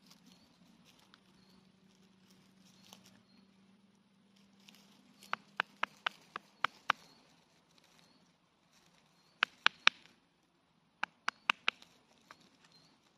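Steel head of a tomahawk, off its handle and held like a knife, working a small stick on a wooden stump: faint scraping, then three runs of sharp wooden knocks, about seven a little after five seconds in and two sets of four near the end.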